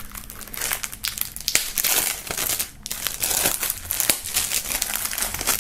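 Plastic shrink-wrap film crinkling and crackling as it is pulled off a CD jewel case, a dense run of small crackles throughout.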